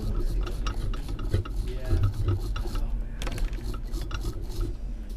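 Small tools and parts being handled on a soldering workbench: irregular scraping and rubbing with light clicks, over a low steady hum.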